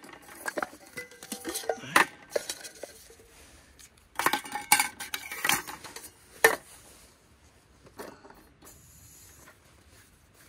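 Metal camp cookware clanking and clinking as it is handled. Irregular sharp knocks come in clusters, the loudest a little over six seconds in, and the handling turns faint for the last few seconds.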